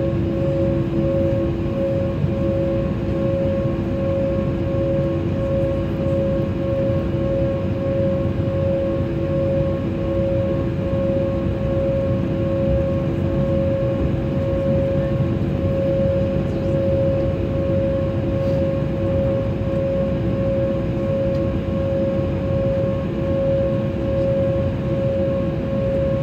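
Steady cabin noise inside a jet airliner: a constant whine of two held tones over a rush of air, with no change in level.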